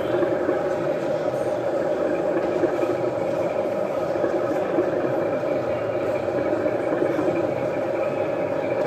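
Model train running on an exhibition layout: a steady hum of fixed pitch over a rough rattling noise, holding the same level throughout.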